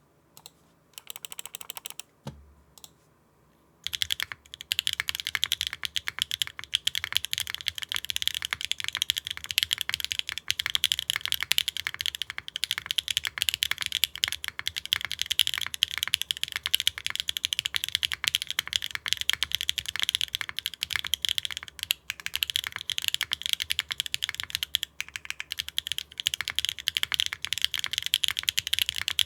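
Mechanical keyboard being typed on fast and without pause from about four seconds in, after a few scattered key presses: a Neo65 with HMX Cosmic Purple switches on a carbon-fibre plate, GMK keycaps and no foam inside the case.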